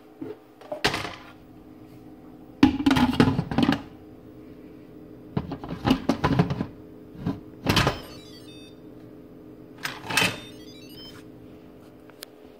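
Instant Pot lid being fitted and twisted shut: a series of clunks, knocks and scrapes of the plastic lid on the stainless pot, over a steady low hum.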